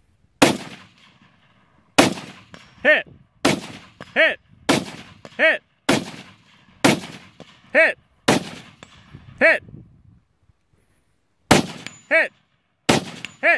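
An AR-15 rifle fires about nine aimed shots at a slow, steady pace, with a pause of a couple of seconds near the end. Most shots are followed, less than a second later, by the ringing ping of a distant steel target being hit.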